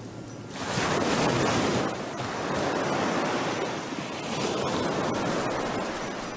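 Sea waves breaking and washing, a steady rushing that swells three times, about every two seconds.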